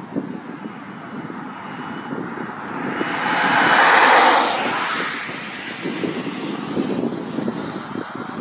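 A car passes close by on the road, its tyre and engine noise swelling to a peak about four seconds in and fading away. Underneath, a low rumble of wind on the microphone and a distant lorry.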